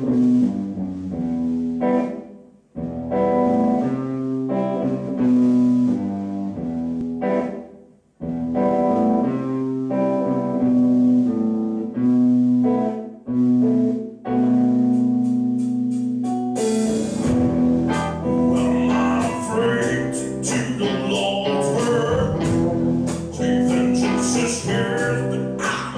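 Live rock band playing the instrumental intro of a soul song: held chords with short breaks, then drums and the full band come in about two-thirds of the way through.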